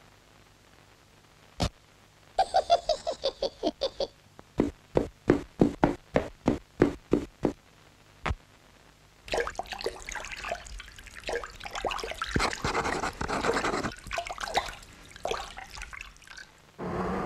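Animation sound effects: a single knock, a quick run of pitched taps, then a steady series of sharp knocks about four a second, one more knock, and finally a long stretch of dense, irregular clattering noise.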